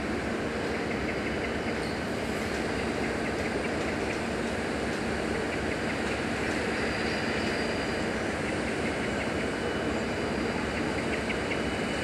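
Irish Rail 071 class diesel-electric locomotive, with its EMD 12-645 two-stroke V12 diesel, running light and approaching at low speed. Its engine gives a steady, continuous running sound.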